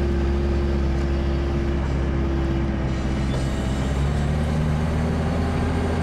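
All-terrain vehicle engine running steadily while driving, a constant low drone whose pitch shifts slightly about four seconds in.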